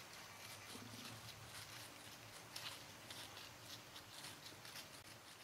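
Whitetail deer stepping and nosing through dry fallen leaves: faint, irregular rustling and crackling.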